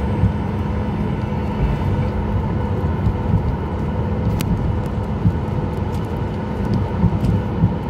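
Cabin noise inside a Boeing 737 MAX taxiing after landing: a steady rumble from the engines at idle and the wheels rolling on the taxiway, with a steady hum. There are a few light clicks, one about four and a half seconds in.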